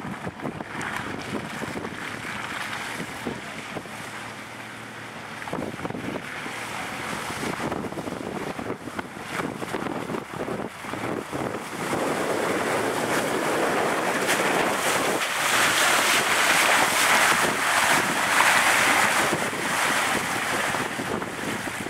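Wind rushing and buffeting over the microphone, with the low sound of SUVs driving through mud underneath; the rushing grows louder about halfway through.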